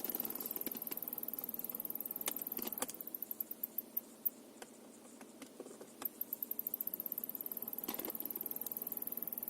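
Heater blower fan motor of a Kia Ceed JD SW running with a fast, rhythmic squeak, a fault in the motor. About three seconds in the squeaking slows and fades to scattered clicks, then about six seconds in it picks up fast again.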